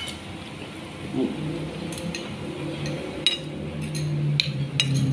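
Eating by hand from ceramic plates: a few light, sharp clinks of fingers and food against the plates, with a low hum of a voice from about a second in.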